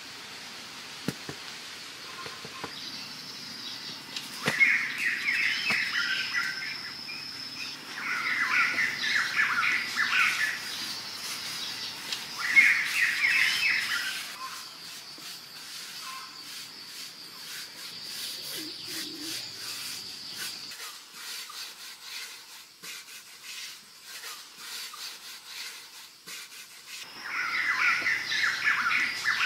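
Birds singing in forest: a loud burst of rapid chattering notes every few seconds, four times, over a steady high-pitched whine. Faint scattered clicks come in the middle, when the song pauses.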